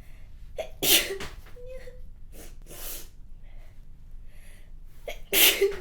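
A woman sneezing twice, about four and a half seconds apart, each sneeze sudden and loud after a short intake of breath, with short sniffs between them from a runny nose.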